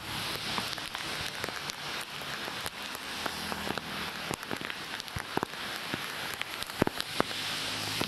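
Steady rain falling on wet pavement, a continuous hiss with scattered sharp drips and taps through it.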